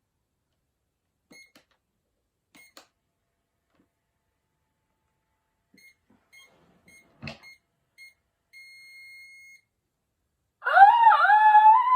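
Battery-powered toy microwave giving short electronic beeps as its buttons are pressed, with a single knock in the middle, then one longer beep of about a second. Near the end comes a loud, wavering high-pitched sound.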